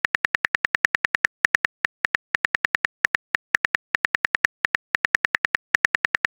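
Phone keyboard key-click sound effects, one tick per letter as a text message is typed: rapid, uneven ticks, about six a second, with brief pauses.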